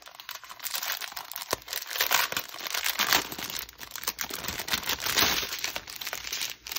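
Plastic packaging crinkling and rustling on and off as a diamond painting kit's small plastic bags of drills are handled.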